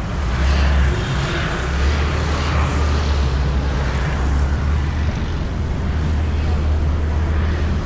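Riding noise from a moving Honda Beat scooter heard through a camera mounted on it: steady, deep wind noise on the microphone over the scooter's engine and tyre and road noise.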